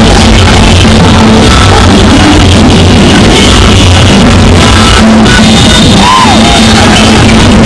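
Loud music with a crowd shouting over it.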